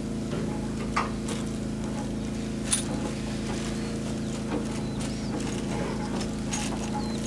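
A 140 L electric concrete mixer running: a steady motor hum with a few short clicks and knocks. Birds chirp faintly near the end.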